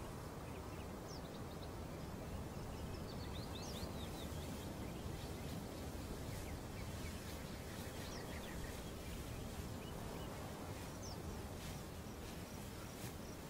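Steady open-air field ambience with scattered short bird chirps. A few faint clicks or rustles come near the end.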